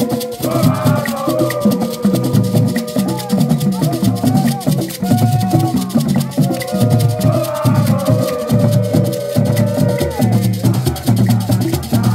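Borborbor music from an Ewe drum ensemble: hand-played barrel drums beating a fast, steady rhythm with shakers rattling along, and voices singing a wavering melody over the top.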